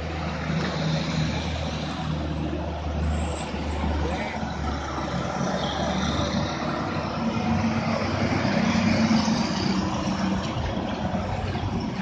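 Diesel engines of heavy trucks running under load as they pass one after another through a tight bend, the engine note and loudness shifting as each truck goes by and swelling a few seconds after the middle.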